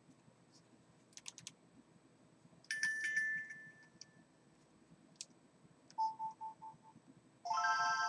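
Nintendo DS Lite's speakers playing its electronic start-up sounds: a short chime about three seconds in, four quick beeps around six seconds, then a louder chord near the end as the Game Boy Advance game starts. A few faint clicks come a little over a second in.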